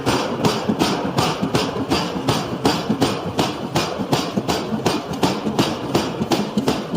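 Hammer blows on a steel knife blank being forged, in a fast, even rhythm of about four strikes a second, over a steady low machine rumble.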